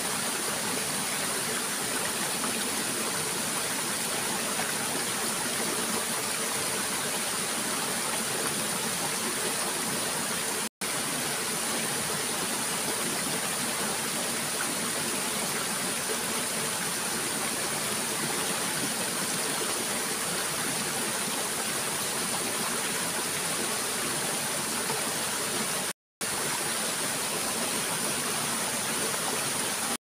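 Waterfall pouring down a rock face onto boulders: a steady, even rush of water. It cuts out to silence for a split second twice, about a third of the way in and again near the end.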